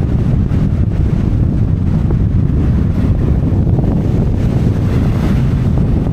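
Strong wind buffeting the microphone: a loud, steady low rumble of gusts.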